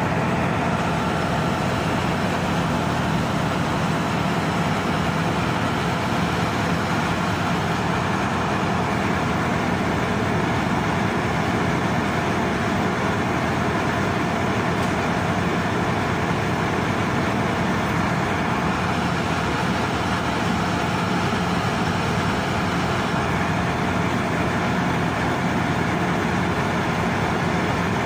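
Large in-line marine diesel engine running under way in a ship's engine room: a loud, steady machinery din that does not change.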